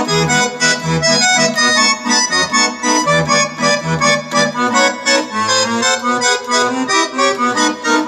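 Accordion playing a quick, lively melody in fast running notes over a steady pulse of bass notes.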